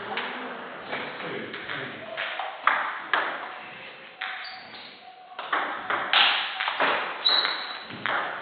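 Table tennis ball clicking off bats and table in a quick rally in the second half, the hits echoing around a large hall.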